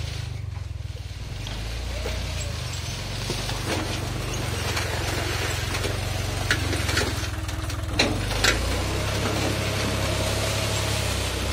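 John Deere tractor's diesel engine running steadily while it pulls a disc-harrow banana-stem cutter through banana plant residue. A few sharp knocks come a little past the middle.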